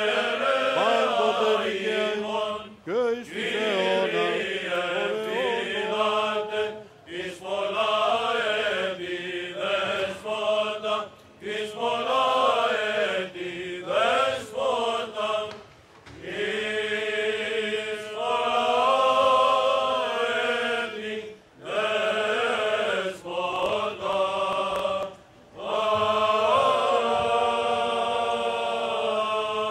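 Greek Orthodox Byzantine chant sung by male chanters: a melody moving over a steady held drone (ison). It comes in phrases with short breaks for breath between them.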